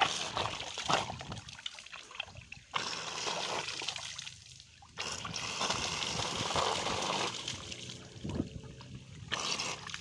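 Splashing and pattering of water thrown out by a homemade 775 DC motor water pump held submerged in a bucket, its jet falling onto wet ground, getting louder and quieter by turns.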